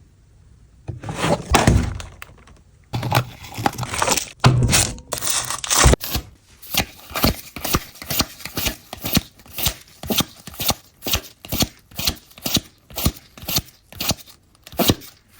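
A foil booster pack wrapper being crinkled and torn open, then trading cards being flicked through one by one, about two short strokes a second.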